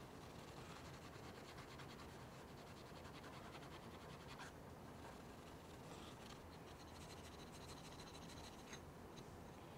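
Fine steel wool scrubbing light surface rust off a small steel part of a replica 1851 Navy revolver: faint, quick scratching strokes, with a couple of small clicks.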